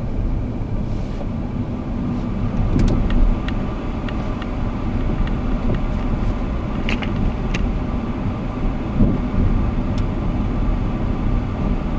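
Car driving slowly: steady engine and road rumble heard from inside the cabin, with a few light clicks.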